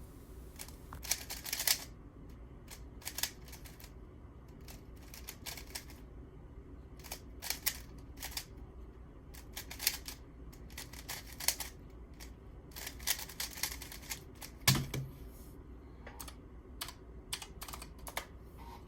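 GAN 356 Air SM 2019 plastic speedcube being turned by hand: quick runs of clicking layer turns, with one louder knock about fifteen seconds in.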